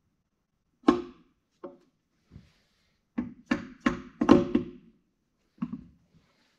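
Mallet blows on the shafts and gears of a Carraro backhoe transmission, tapping them down into place: about eight knocks with a short metallic ring, a quick run of them in the middle.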